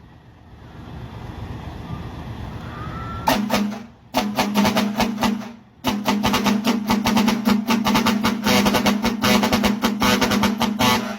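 A rising noisy rumble, then a loud vehicle musical horn of the 'papap dol' kind, starting about three seconds in. It plays a rapid, drum-like pulsing pattern on a steady low note, breaking off briefly twice.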